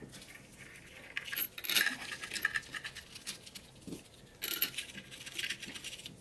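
Small steel bolts clinking and rattling against a 4L80E transmission pump as they are handled and set into the bolt holes by hand: light metallic taps with a little ringing, in two spells, one about a second in and another about four and a half seconds in.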